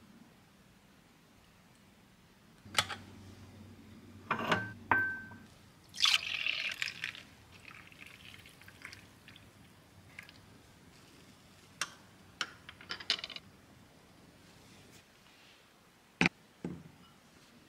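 A drink poured into a glass mug, with scattered clinks and taps of glass and a spoon around it. There is a short pour about six seconds in and a single sharp clink near the end as the mug is set down.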